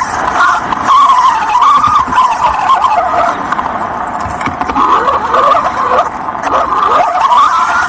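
Remote-controlled car's motor whining, its pitch rising and falling again and again with the throttle, over the rough noise of tyres on dirt, heard from a camera mounted on the car itself.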